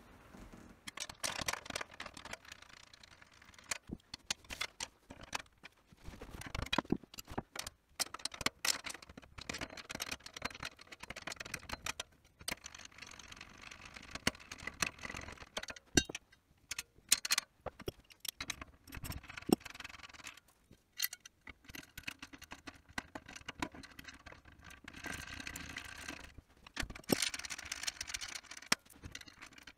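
Irregular metallic clinks, knocks and rattles of slotted steel strut channel and its bolts being handled and refitted on the frame, with a couple of longer scraping stretches, one near the start and one near the end.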